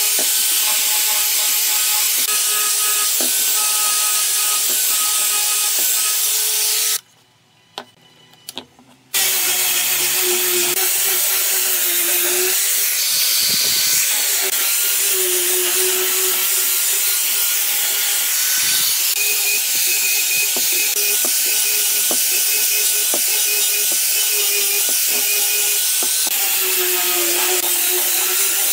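Handheld electric angle grinder running while its sanding attachment grinds against wood: a steady motor whine over a rough sanding hiss, the whine dipping in pitch now and then as the tool is pressed harder into the work. The sound drops away for about two seconds some seven seconds in, then the grinder runs and sands again.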